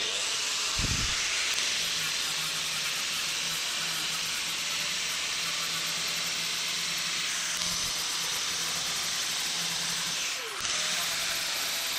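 Random orbital sander running steadily on an epoxy-coated plywood rudder, sanding a protruding bushing down flush: a steady hiss over a low motor hum, easing off for a moment about ten and a half seconds in.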